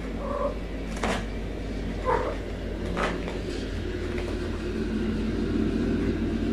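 A cat giving two short mews, one just after the start and one about two seconds in, among a few sharp knocks over a steady low hum.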